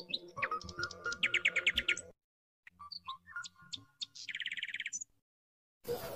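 Small birds chirping and trilling in repeated phrases, cutting out abruptly twice. Near the end a sudden crackling rustle begins, from the fried pastry being handled.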